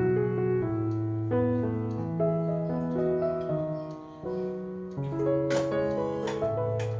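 Background piano music: slow, calm chords and melody notes changing about once a second, with a few light clicks near the end.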